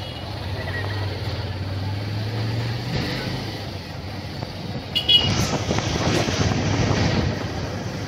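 Street traffic with motorcycles running by: a steady engine drone for the first few seconds, a brief high horn toot about five seconds in, then busier traffic noise.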